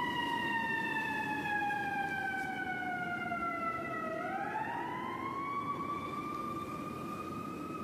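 Emergency vehicle siren wailing: its pitch falls slowly for about four seconds, then rises again and holds. A steady low rumble of city noise lies underneath.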